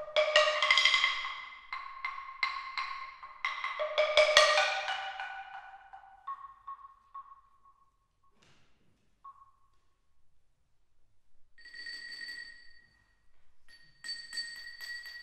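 Percussion cadenza improvised on kitchen objects: a quick run of strikes on ringing kitchenware, thinning out to a few single strikes and a near-silent pause. Near the end, ringing tones that each hold for a second or so come in twice.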